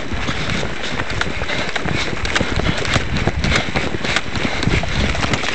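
Running footsteps crunching quickly and unevenly over dry, stony dirt ground.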